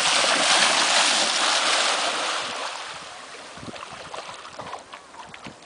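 A dog leaping into a lake and thrashing through the shallows, a loud splashing that fades after about two seconds as it swims out into deeper water.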